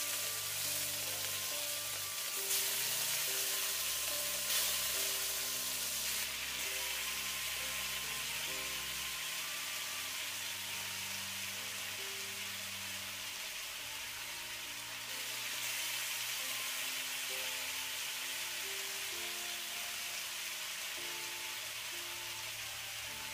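Marinated beef strips sizzling in hot oil in a non-stick wok, the sizzle swelling a few times as more pieces are dropped in, over background music of held notes.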